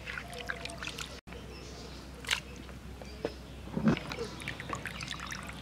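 Hands washing raw chicken pieces in a pot of water: wet squelching, splashes and drips as the pieces are lifted and squeezed, with scattered small clicks. The audio drops out briefly about a second in.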